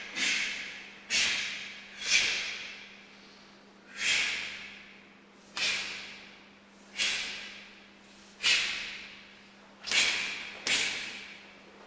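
A karateka's sharp, forceful exhalations and gi snaps, one with each technique of a kata, about nine times in irregular rhythm, each sharp at the start and fading off in the hall.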